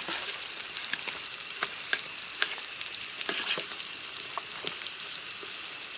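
Chopped onions sizzling in hot oil in a cooking pan. A steady frying hiss runs throughout, dotted with scattered sharp clicks and pops of spattering oil and the stirring spoon.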